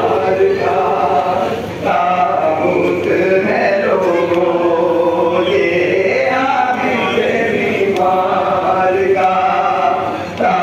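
Group of men chanting a mourning lament together in long sung phrases, with a brief pause about two seconds in and another near the end.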